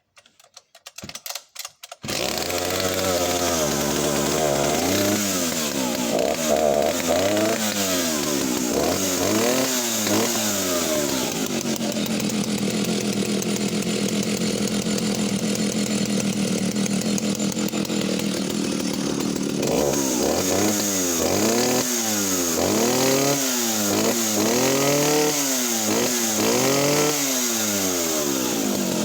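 Vintage West German Stihl 08S two-stroke chainsaw started from choke and throttle lock, catching after a couple of seconds of short starting sounds. It then runs with the throttle blipped up and down repeatedly, holds a steady speed for several seconds in the middle, and is revved up and down again near the end.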